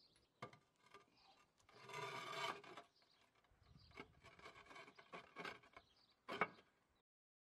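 Faint scraping and rubbing of a trowel working sand and mortar mix while rebedding roof end tiles, in a few strokes with sharp knocks; the sound cuts off abruptly near the end.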